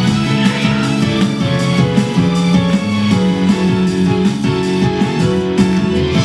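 Pop song playing, with strummed guitar to the fore over a steady beat.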